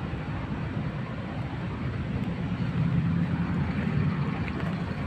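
A vehicle engine running steadily with a low hum, a little louder from about halfway through.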